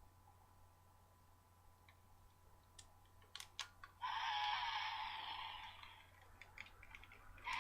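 Handling clicks, then plastic packaging rustling and crinkling in two noisy bursts: one starting about halfway through and fading over a couple of seconds, another starting near the end.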